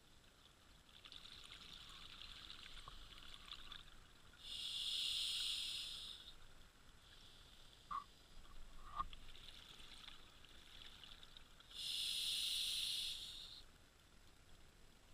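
Scuba diver breathing through a regulator underwater: two loud hissing breaths about seven seconds apart, with fainter hiss between them. Two short clicks come in the middle.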